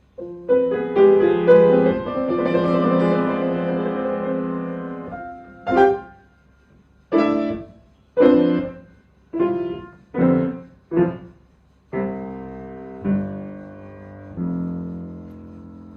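Solo piano playing. A stretch of many notes held together is followed by about seven short separate chords, then a quieter sustained passage that fades away near the end.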